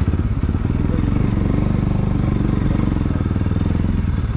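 Bajaj Pulsar NS200's single-cylinder engine running steadily as the motorcycle is ridden over a rough dirt track, heard from the handlebars.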